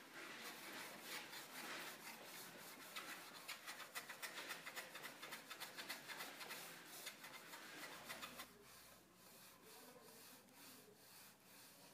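Sandpaper on a hand-held wooden sanding block rubbed back and forth over a walnut block in quick, even strokes, flattening its face. The strokes grow softer after about eight and a half seconds.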